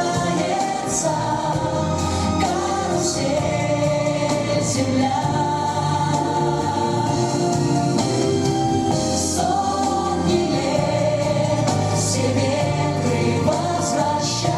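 A choir singing over instrumental accompaniment, with held sung notes.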